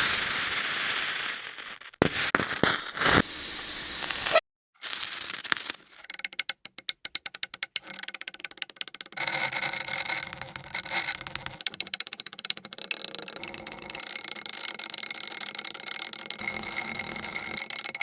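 Montage of extreme-temperature reactions, hot and cold materials meeting water, ice and metal. First a sizzling hiss, then several short separate hisses and hits, then a fast run of clicks lasting about two seconds, and from about halfway through a long steady whining buzz with crackle underneath.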